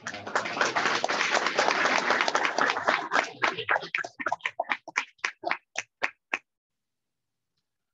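Audience applauding: dense clapping that thins out after about three seconds into a few scattered claps, stopping after about six seconds.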